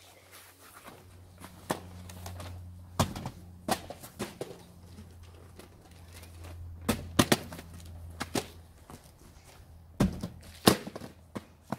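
Sneakers on paving stones and light cardboard packages thudding against and dropping into a cardboard box: a string of irregular sharp knocks, the loudest near the end, over a low steady hum.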